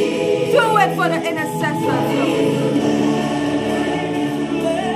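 Gospel praise music: a choir singing over steady held chords, with a lead voice sliding between notes in the first two seconds.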